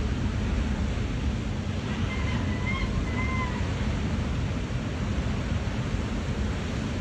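Heavy surf from a hurricane-driven swell, a steady rumble of waves breaking, with wind buffeting the microphone.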